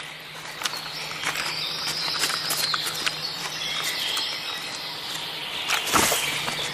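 Small scratches and clicks, typical of a European wildcat kitten's claws on bark as it climbs down a thin tree trunk. Behind them is a steady high chirring of forest ambience, with one louder rustle about six seconds in.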